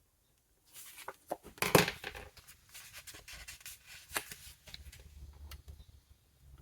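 Planner sticker labels being peeled off their backing sheet and handled, a run of papery rips and rustles with small taps, loudest just under two seconds in.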